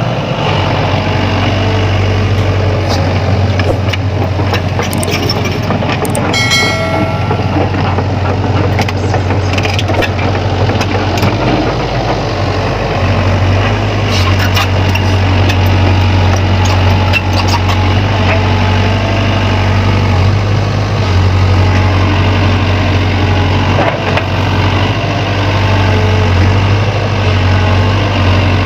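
Sany excavator's diesel engine running steadily, its low drone swelling and easing with the load as it digs and moves soil, with scattered knocks and clanks mostly in the first half.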